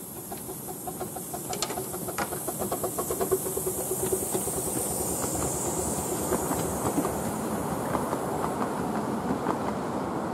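Miniature steam train passing close by: the wheels of the locomotive and its carriages click rhythmically over the rail joints. It grows louder over the first few seconds as it nears, over a steady high hiss.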